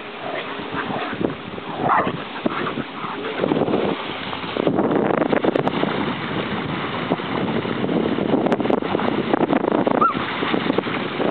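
Dogs splashing and running through shallow surf while they play-fight. From about four seconds in there is a dense, continuous rush of splashing water.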